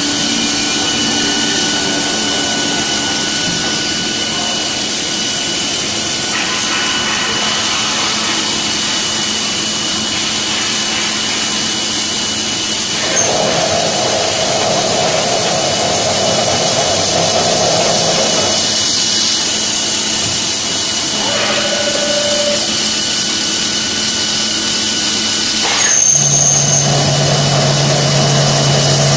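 CNC drilling machine's spindle drilling into a steel plate with coolant spraying: a steady hiss and a thin high whine throughout, with a lower tone coming in about halfway through and a deep hum joining near the end.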